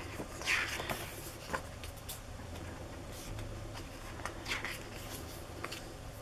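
Pages of a large album photo book being turned by hand: a papery swish about half a second in and another a little past the middle, with light ticks and crinkles of the paper in between.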